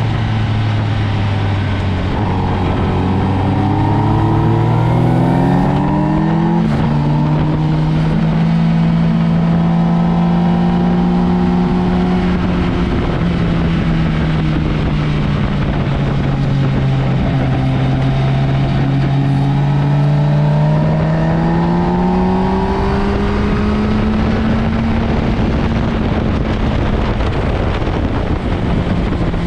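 Motorcycle engine running hard at speed on a race track: its pitch climbs under acceleration, drops once at a gear change about seven seconds in, sinks slowly and climbs again near the end, over constant rushing noise.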